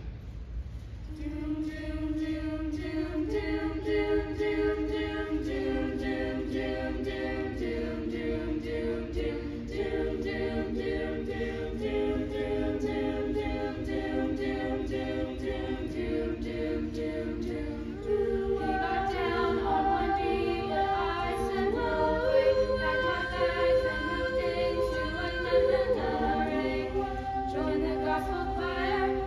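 Small youth choir of mostly girls' voices singing a cappella in several parts, entering about a second in on held chords and growing louder and fuller about two-thirds of the way through.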